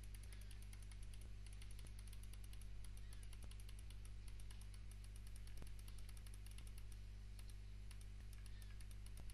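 Rapid computer mouse clicks, several a second, each placing a point on a polyline traced around a boundary, over a steady low electrical hum.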